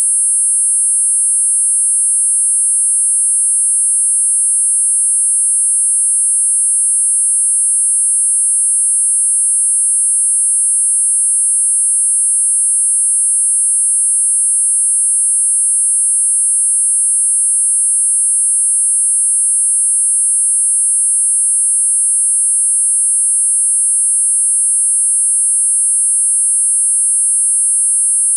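Tinnitus masker of four electronic sine tones at 8.5, 9, 10 and 10.5 kHz sounding together as one steady, loud, high-pitched cluster.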